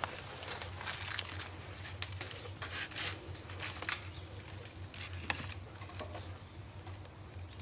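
Hands rubbing and turning a raw, spice-coated whole goose on a parchment-lined metal baking tray: irregular crinkling of the paper and rubbing of skin, with scattered short sharp ticks, the loudest a little after one second in, at two seconds and after five seconds, over a low steady hum.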